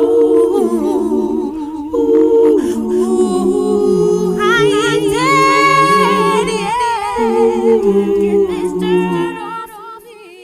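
Several voices humming and singing sustained chords in harmony, unaccompanied, with the chords moving every second or so. The sound fades out near the end as the song closes.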